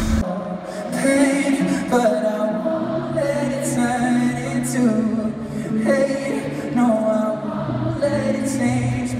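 Live pop music recorded from the crowd: a male singer performing with an acoustic guitar while the audience sings along.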